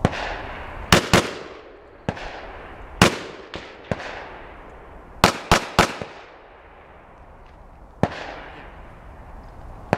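Shotgun firing on a range: a string of about seven loud shots, with a quick pair near the start and a rapid triple midway, each followed by a ringing echo tail. Fainter single reports fall between them.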